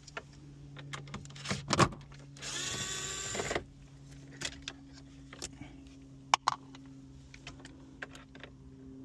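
A cordless power driver whirs for about a second, backing out a bolt that holds the radio head unit in the dash, with scattered clicks and knocks of the tool and parts around it. A faint steady hum runs underneath.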